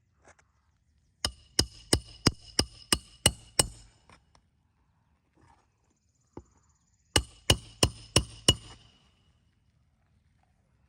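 Roofing hatchet driving shingle nails into a roof: a run of about eight sharp, ringing hammer strikes, then after a pause five more, about three blows a second.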